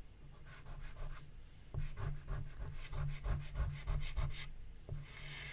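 A chalk pastel stick rubbing over paper in a run of short, quiet strokes as an area is coloured in.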